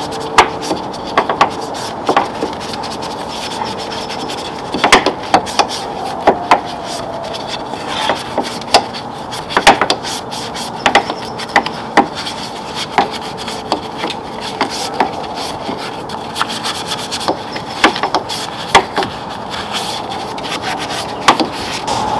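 Small bristle detail brush scrubbing soapy painted metal around a truck's hood latch: irregular scratchy strokes with many sharp clicks and ticks over a steady background hiss.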